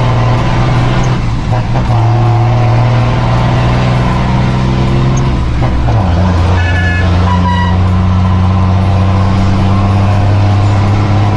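Mercedes-Benz 1620 truck's diesel engine running loud through a straight-pipe exhaust while driving. About six seconds in the engine note drops a step in pitch and then holds steady.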